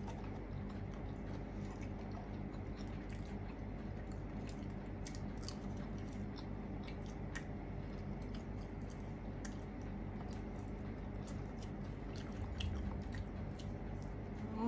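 Close-miked chewing: soft, wet mouth clicks and smacks of someone eating, over a steady low hum.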